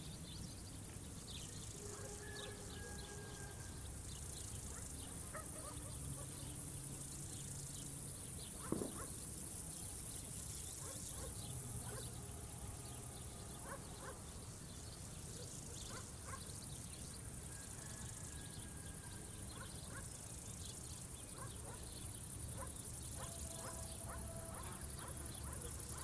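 Field insects stridulating in a steady high-pitched buzz. From about four seconds in, a louder, even higher insect song joins it and then cuts off suddenly after about eight seconds. Faint, scattered bird chirps sound over the top.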